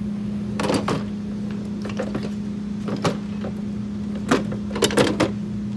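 Power tools and metal parts knocking and clinking in a steel tool cart drawer as they are handled, several separate clunks, over a steady low hum.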